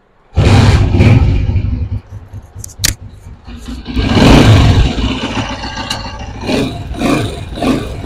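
Honda CG125's single-cylinder four-stroke engine starting up and running, revved up once about four seconds in and then settling back to idle, with a sharp click near the third second. It runs smoothly, its pushrods newly replaced and its tappets freshly set to 0.05 mm.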